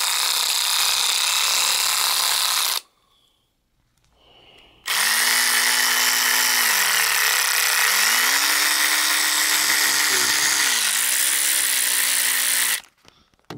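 Snap-on CTR761C 14.4-volt 3/8-inch cordless ratchet running with no load, its motor and head whirring. It runs for about three seconds and stops, then runs again for about eight seconds. During the second run the speed drops and comes back up twice, as the variable-speed trigger is eased and squeezed again.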